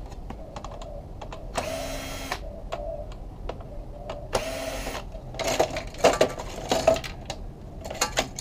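Cordless drill backing out screws in two short runs of under a second each, its motor a steady whine. These are followed by a few seconds of clicks and plastic rattles as parts are handled in the TV cabinet.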